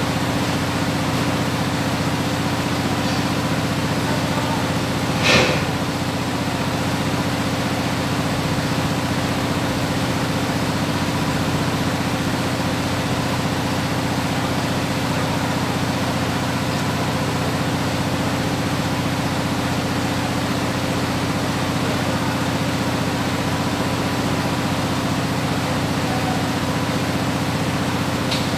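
Heavy engine idling steadily with a low drone, and a single sharp knock about five seconds in.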